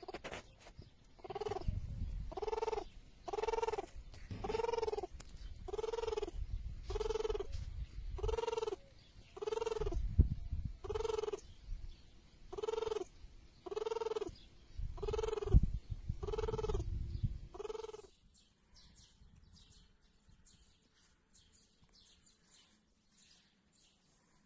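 Male tortoise grunting during mating: a pitched, arching call repeated about once a second, some sixteen times, with dull knocks underneath. The calls stop abruptly near the end, leaving only faint rustling.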